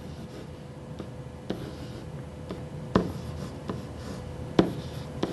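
Pen tapping and scratching on an interactive whiteboard as numbers are written, with a series of light taps, the sharpest about every second and a half.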